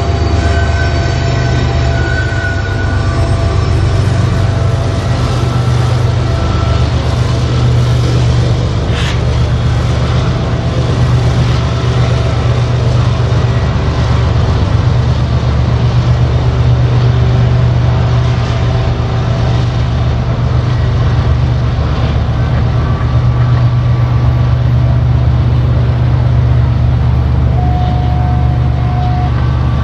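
Freight train rolling by with its diesel locomotive running: a steady low engine rumble, with a few brief thin wheel squeals over it.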